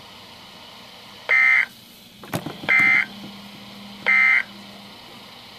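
Emergency Alert System end-of-message data signal over NOAA Weather Radio: three short, identical bursts of shrill digital screeching, about one and a half seconds apart, with a sharp click between the first and second.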